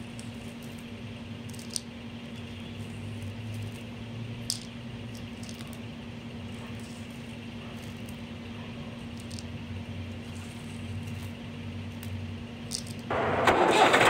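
A steady, low, engine-like mechanical hum, with a few light clicks as small stones are dropped into a plastic toy trolley. About a second before the end, a much louder rushing noise starts abruptly.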